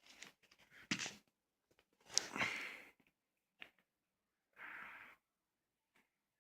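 Album packaging being handled and opened: a run of plastic rustles and clicks, with a sharp click about a second in, a longer rustle about two seconds in and another shorter rustle near the end.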